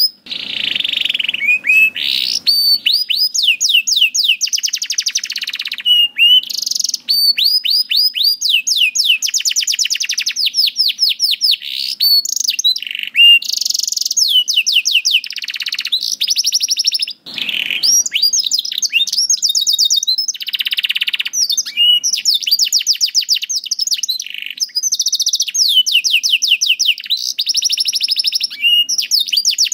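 Domestic canary singing a long, continuous song of fast trills, one rapid run of repeated high notes after another, with only brief breaks between phrases.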